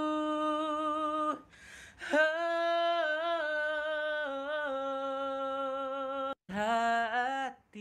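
A solo voice singing slow, long-held notes of a song. One note ends about a second and a half in, then after a breath a note is held for about four seconds with a slight waver in pitch, and a shorter phrase follows near the end.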